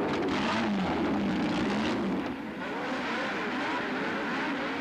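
Several open-wheel racing car engines revving on the starting grid, their pitch rising and falling as the throttles are blipped.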